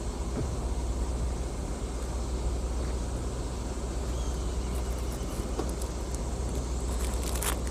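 Steady low rumble under an even hiss, with a few sharp clicks near the end.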